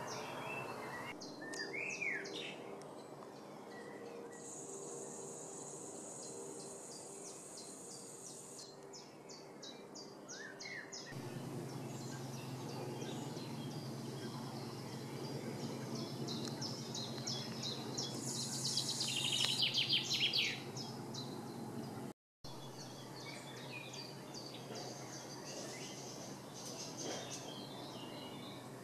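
Woodland birds singing, with short repeated high chirps and a louder burst of song about two-thirds of the way through, over a steady low background hum.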